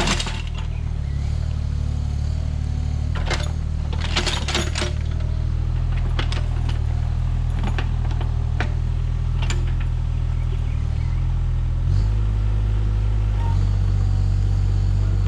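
Mini excavator's diesel engine running steadily, with scattered sharp metallic clicks and clanks from the machine at work, several of them a few seconds in. The engine note changes about twelve seconds in.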